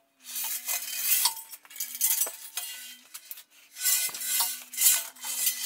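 Metal clinking and scraping in two spells, with a few sharp knocks, as the steel submarine hull shifts in its roller cradle and its hoist chains rattle. A steady low hum runs underneath, dipping briefly in pitch every second or so.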